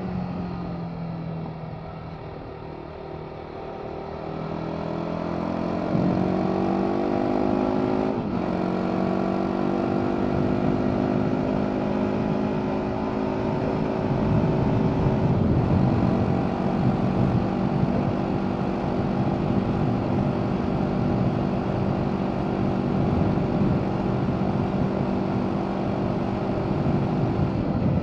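BMW G 310 R's single-cylinder engine through its stock Euro 5 exhaust, heard from the rider's seat. The engine note falls as the throttle eases off, then climbs under acceleration, drops sharply at a gear change about eight seconds in, and settles into a steady cruise.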